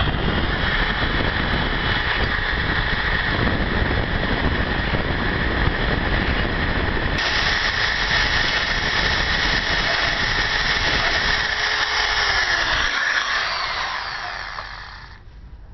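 Electric hand drill running steadily as it bores holes around the edge of a tinplate can's lid. Near the end the trigger is let go and the drill winds down, falling in pitch and fading out.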